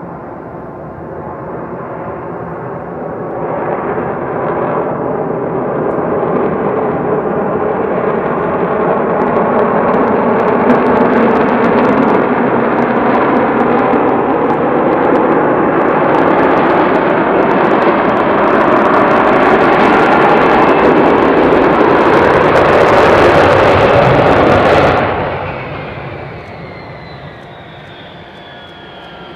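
Engine noise of an F-35 fighter jet (single Pratt & Whitney F135 turbofan), building over several seconds to a loud, steady jet noise. About 25 seconds in it drops away abruptly, leaving a quieter whine that falls in pitch.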